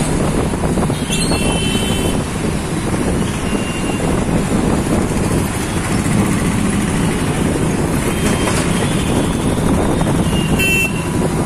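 Auto-rickshaw running along a busy city road, a steady engine and road rumble with traffic around. A vehicle horn sounds about a second in and again near the end.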